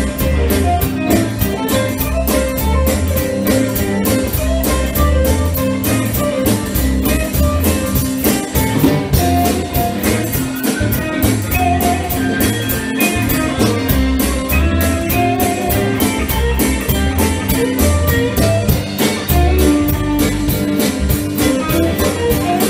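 Live blues band playing an instrumental passage: electric guitar lines over bass and a drum kit keeping a steady beat.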